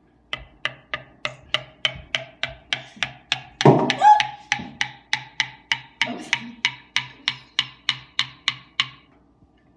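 A spoon tapping steadily on a cup of hot chocolate, about three taps a second, each tap ringing with a note that slowly rises in pitch: the hot chocolate effect, as bubbles clear from the freshly stirred drink. A brief louder sound breaks in near the middle.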